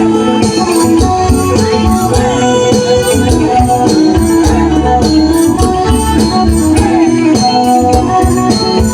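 Khmer rom vong dance music played loud, with melodic instruments over a steady beat and shaker-like percussion.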